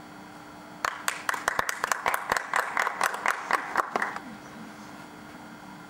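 Audience applauding in a short burst of scattered claps for about three seconds, starting about a second in, with voices calling out over it.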